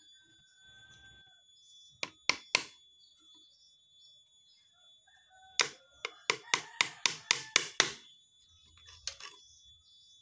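Small hammer driving nails into the thin wooden slats of a bird-trap cage frame. There are three light taps about two seconds in, then a single strike followed by a quick run of about ten strikes between roughly five and a half and eight seconds.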